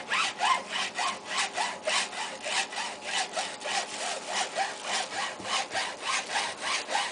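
Hacksaw blade sawing through the hard plastic housing of a clothing security tag clamped in a bench vise, in quick even strokes of about three to four a second. Each stroke carries a short rising tone.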